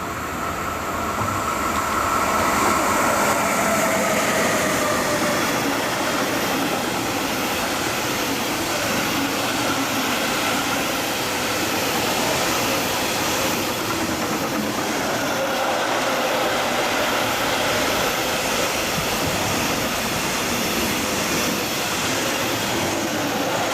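Siemens Vectron class 193 electric locomotive passing with its train: steady wheel-on-rail rolling noise that swells in the first couple of seconds and then holds, with a faint high whine over it.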